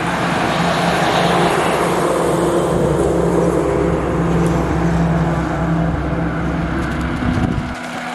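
Heavy truck engine running close by as the truck passes on the road, a loud steady rumble that cuts off suddenly near the end.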